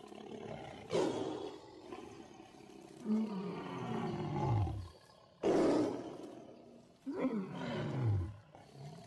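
A big Presa Canario dog giving deep, drawn-out barks, three of them, each starting suddenly and falling in pitch.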